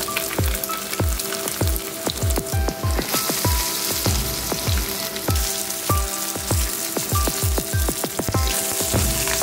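Masala-coated seer fish steaks shallow-frying in hot oil in a nonstick pan, with a steady sizzle and crackle. Background music with a quick, regular bass beat plays over it.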